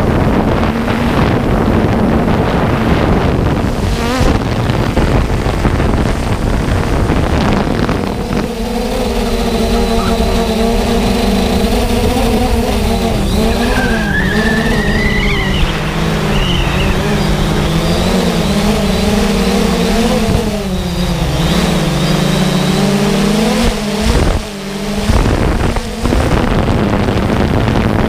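Quadcopter drone's electric motors and propellers humming, heard up close from the drone's own onboard camera, the pitch wavering as the throttle changes. Wind rush on the microphone dominates the first several seconds before the motor hum comes through clearly.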